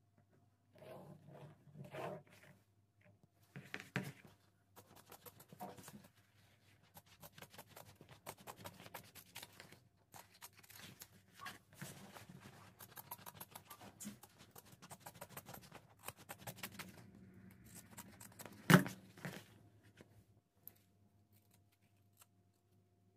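Scissors cutting through suede leather: a long run of quick snips and rasping cuts along a traced outline, with a single sharp knock near the end. Before that, a few short scratches of a pen tracing around a paper template on the suede.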